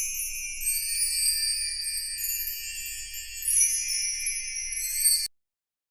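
A shimmering, high-pitched chime-and-jingle-bell sound, many bright tones ringing together, that cuts off abruptly a little over five seconds in.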